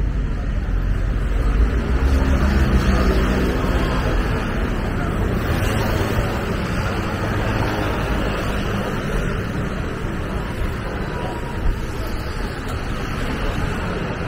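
Busy city street traffic: a steady wash of engine and tyre noise from passing vehicles, with one vehicle's engine hum loudest about two to three seconds in.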